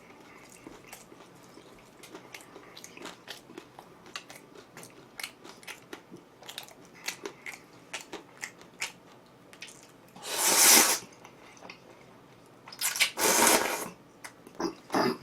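A person chewing and biting food close to the microphone, with many small wet mouth clicks. About two-thirds of the way through there are two louder rushes of noise, each about a second long.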